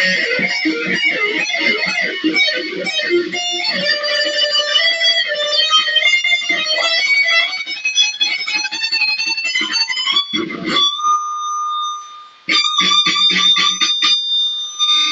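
Electric guitar playing a fast shred solo: rapid runs of notes, a long held note about eleven seconds in, a brief break near twelve seconds, then another flurry of quick notes.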